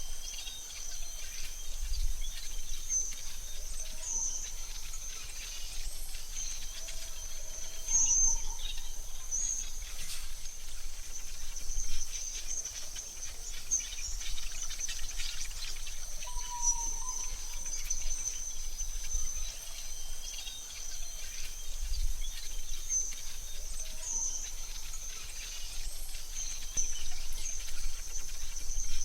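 AI-generated forest ambience: a steady high-pitched insect drone with scattered short bird chirps over a faint low rumble.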